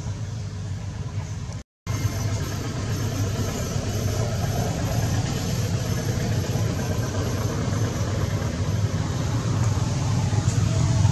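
Steady low rumble with a faint hiss above it, cutting out for an instant about two seconds in.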